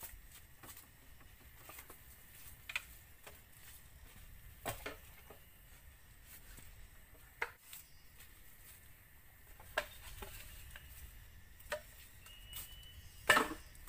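Footsteps and rustling over cut cogon grass and bamboo debris: scattered short clicks and knocks every second or so, with one louder knock near the end.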